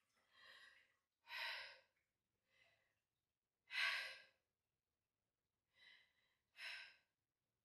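A woman's heavy, breathy sighs and breaths: six separate exhalations with near silence between them, the loudest about four seconds in.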